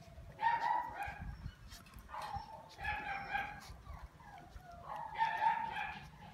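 Shiba Inu whining in three long, high-pitched calls, each about a second long and about two and a half seconds apart.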